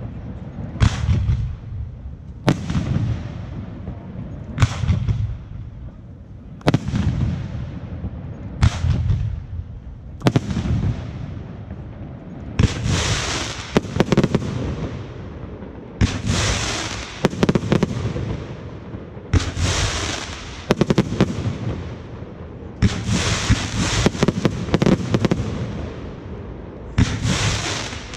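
Fireworks display: bursts go off about every two seconds, each with a low echoing rumble. From about halfway through, the bursts are followed by a long crackling hiss.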